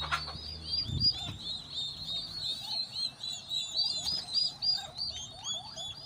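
A brood of turkey poults peeping constantly, many short high chirps overlapping several to the second. A soft thump comes about a second in.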